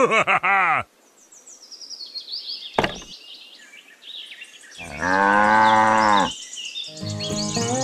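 Recorded cow moo used as a sound effect: one long moo about five seconds in, and another starting about a second before the end. Earlier there is a run of short high twinkling notes and a single click.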